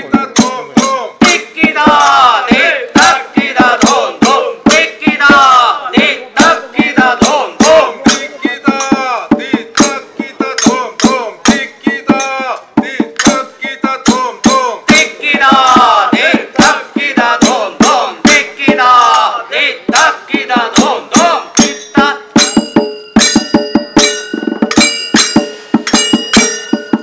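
Padayani ritual music: fast, steady drumming with men's voices chanting and calling out over it. Near the end a steady, high held tone joins in.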